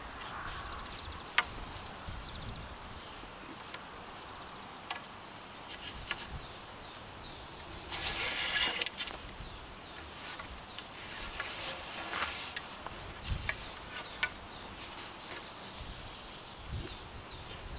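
Rope rustling and rubbing as it is wound round and pulled tight on two crossed poles while a diagonal lashing is tied, loudest in a burst of rustle midway, with a sharp tap near the start. Short high chirps repeat about twice a second in the background through the second half.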